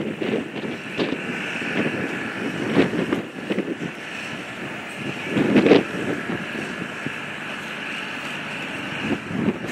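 Wind buffeting the microphone in irregular gusts, the strongest about halfway through, over a steady hum of vehicle noise.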